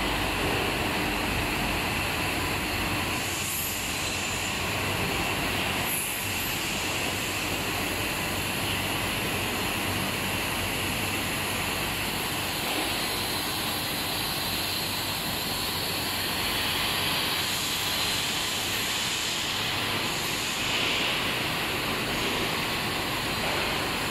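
Steady, even factory background noise, a constant rush without clear pitch or rhythm, holding the same level throughout.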